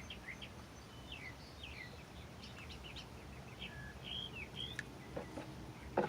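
Birds calling: a run of short, high chirps and brief warbled phrases, over a faint low steady rumble.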